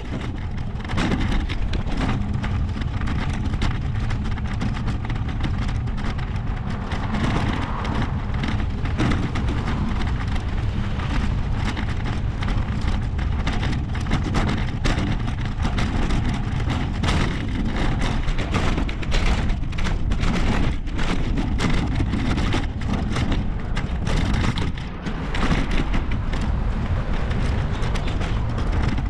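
Wind rushing over the microphone of a camera on a moving bicycle, mixed with road traffic, with many irregular short knocks.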